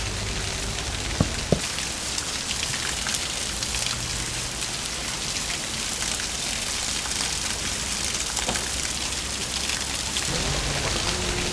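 Water from a small waterfall pouring and splashing onto rocks and a person standing under it: a steady, even spatter. Two sharp knocks about a second in.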